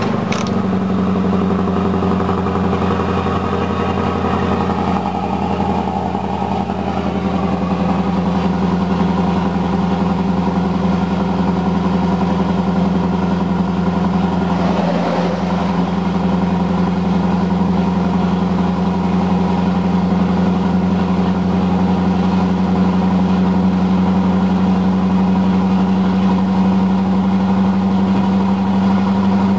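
Scania 164 580's V8 diesel engine running steadily under way at cruising speed, heard from inside the cab as an even low drone.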